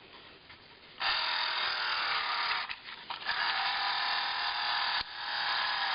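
1978 Kenner Star Wars TIE Fighter toy's sound-effects unit: its small 3-volt motor whirring as it flicks a clear plastic strip. It starts about a second in, dips briefly around three seconds in, and cuts out for an instant near five seconds.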